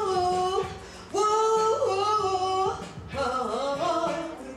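A woman singing into a microphone in long held notes. She breaks off briefly just under a second in, then comes back in on a long note.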